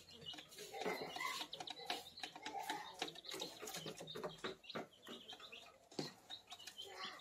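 Month-old village chicks (ayam kampung) peeping and giving soft clucks, over a scatter of sharp clicks from beaks pecking at the feeder.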